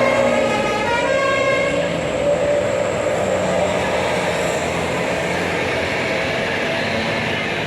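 Bus 'telolet' multi-tone air horn playing a short melody of stepping notes that ends about two seconds in, followed by the steady noise of a bus engine and traffic going by.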